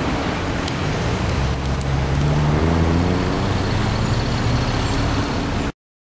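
Street traffic with a motor vehicle's engine running close by; its pitch rises as it speeds up, then holds steady, and the sound cuts off suddenly near the end.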